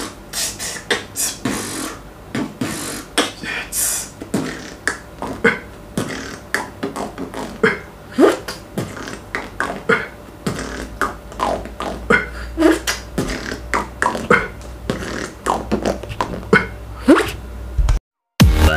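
A man beatboxing: a quick, uneven string of sharp mouth clicks and hissy strokes mixed with short sliding vocal sounds. It cuts off suddenly near the end, and electronic dance music begins.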